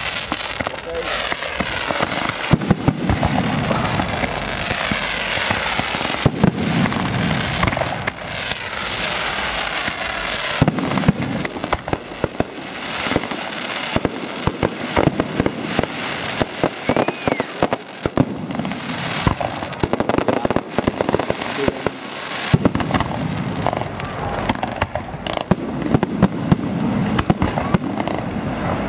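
Aerial firework shells bursting in rapid succession, heard from about a quarter mile away: many sharp bangs over a continuous dense crackle.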